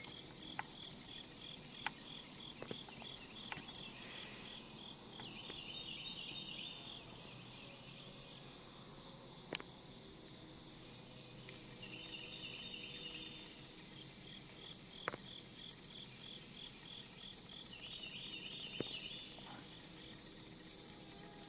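Crickets and other field insects calling: a steady high trill under a rhythmic, pulsed chirping that comes and goes in runs of a few seconds. A few sharp clicks stand out, the loudest right at the start.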